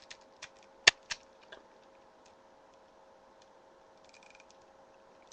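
A few sharp plastic clicks and taps from handling a Digimon Garurumon transforming toy figure, the loudest about a second in, followed by a faint rustle near the end.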